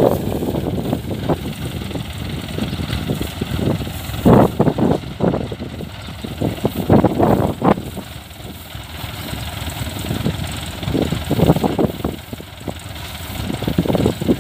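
Kubota combine harvester engine running, its low rumble swelling and fading unevenly.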